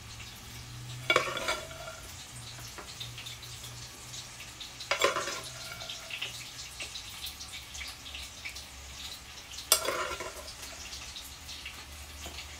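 A metal serving spoon scattering small pieces of cooked meat over flatbread in a bowl: three sharp scrapes or drops about four seconds apart, each followed by a short rattle of falling pieces, with faint crackling in between. A low steady hum runs underneath.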